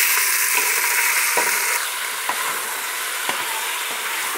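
Beef cubes sizzling as they fry in hot rendered pancetta fat over high heat: a steady hiss with scattered small pops, a little louder for the first two seconds as the meat goes in, then settling.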